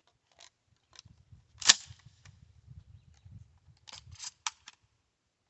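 Sharp metallic clicks and clacks of a Stevens 320 pump-action shotgun being handled and readied, with one loud clack about 1.7 seconds in and a quick cluster of clicks near the end.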